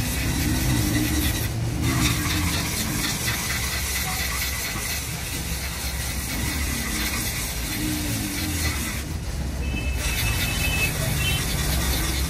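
A steady low mechanical hum, like a running engine or machinery, with faint voices now and then.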